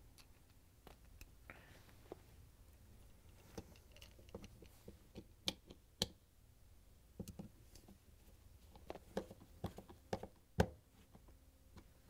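Light, irregular clicks and taps of a 1/4-inch nut driver turning a screw into the plastic flood switch housing, with the part being handled.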